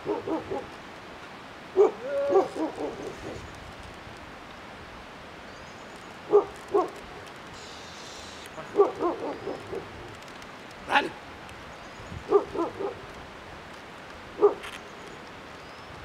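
Short shouted calls, one to a few at a time in irregular bursts, from a ploughman driving his yoked pair of oxen at the wooden plough.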